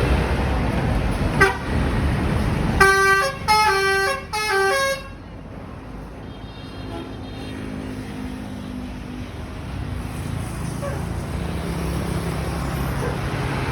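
A bus's telolet horn (basuri type) gives a short toot, then plays a quick tune of three notes at different pitches over about two seconds, over the rumble of the bus. Once the tune ends, a quieter steady rumble of engine and traffic carries on.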